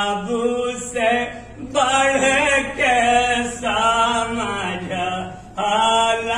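A Hindu priest chanting in a sing-song melody, a man's voice in phrases about a second long with short breaks between them.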